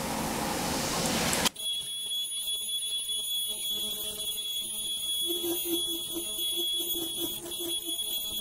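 Ultrasonic lace machine running: a steady, high-pitched whine of several tones, with a faint low pulse about three times a second from about five seconds in. Before the whine, about a second and a half of steady hiss that cuts off abruptly.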